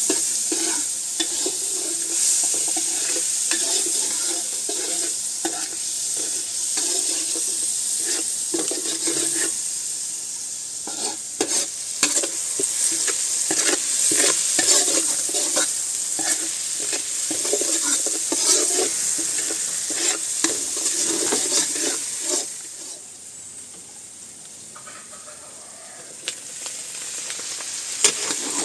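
Squid woku cooking in a pan: a spatula stirs and scrapes against the pan, with frequent clicks, over a steady sizzle. About 22 seconds in the stirring stops and the sound drops to a quieter sizzle, picking up a little near the end.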